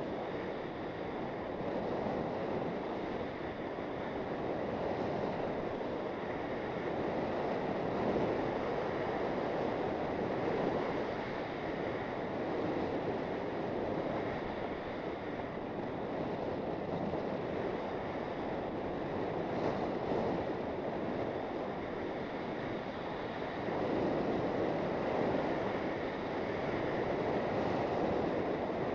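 Skis sliding and scraping over packed, groomed snow while wind rushes over the microphone of a camera worn by the skier, a continuous noise that rises and falls in level every few seconds.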